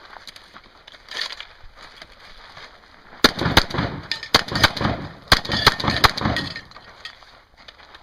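A rapid string of shotgun shots, about nine or ten sharp reports fired over some three seconds, starting about three seconds in.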